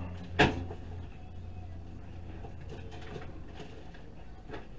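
Faint handling sounds as a block of graphite is held up and turned in the hand: one sharp knock about half a second in, then a few small clicks over a low steady hum.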